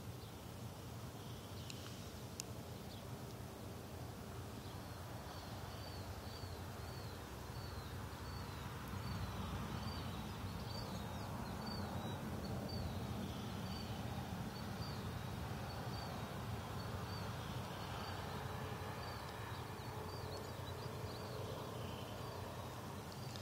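Outdoor ambience with a steady low rumble, and a small creature's short high chirps repeating about twice a second. They start a few seconds in and stop near the end.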